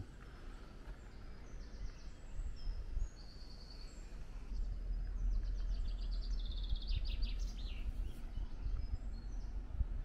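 Small woodland birds singing, with a quick run of repeated high notes in the middle, over a steady low rumble.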